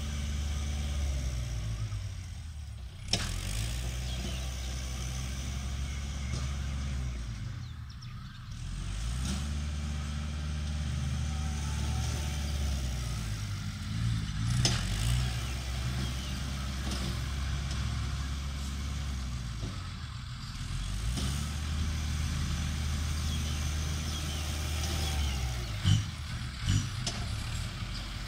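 Loaded Isuzu six-wheel dump truck's diesel engine running as the truck approaches on a dirt track, its note dropping away and picking up again every five or six seconds. A few sharp knocks, loudest near the end.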